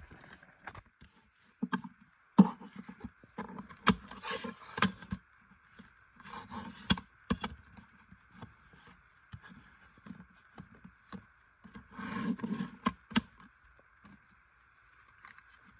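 A CD case and its packaging being handled: irregular sharp clicks, taps and short scraping rustles, loudest about two and a half seconds in and again near twelve seconds. A faint steady high whine runs underneath.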